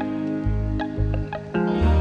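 Background music: plucked guitar over a bass note that pulses about twice a second.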